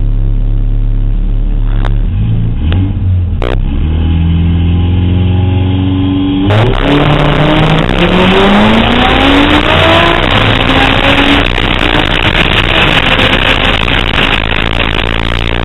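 Car engine idling with a few sharp clicks, then launching hard about six and a half seconds in and accelerating down a drag strip. The engine pitch climbs, drops back at a gear shift and climbs again, with loud wind rush over the outside-mounted camera.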